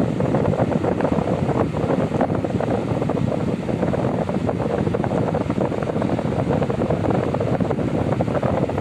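Mondial Maxi Power 40 pedestal fan running, its air stream buffeting the microphone with a steady rushing noise.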